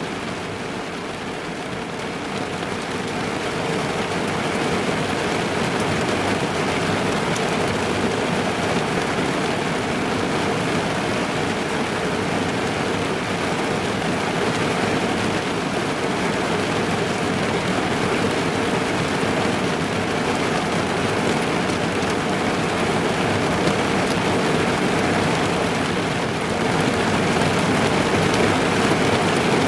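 Steady heavy rain drumming on a car's roof and windows, heard from inside the car, a dense patter that swells slightly a few seconds in and again near the end.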